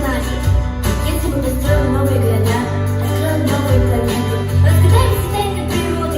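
Pop music with a steady bass line and held chords.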